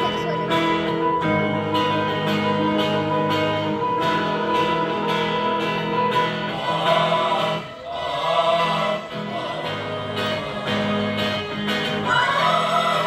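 A church choir singing to strummed acoustic guitar accompaniment. The guitar strokes keep a steady beat under held chords, and the choir's voices grow fuller from about seven seconds in.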